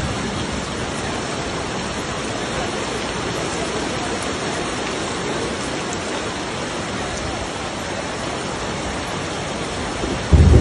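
Steady hiss of a heavy downpour with running floodwater. Near the end a loud, low clap of thunder breaks in.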